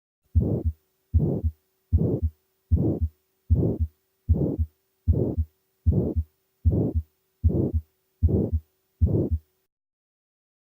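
Stethoscope recording of a heartbeat with a murmur: twelve even beats about 0.8 s apart, roughly 78 a minute. In each beat a noisy murmur fills the gap between the first and second heart sounds, a systolic murmur.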